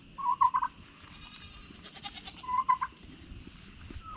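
Nigerian dwarf goat bleating: two short, wavering bleats about two seconds apart.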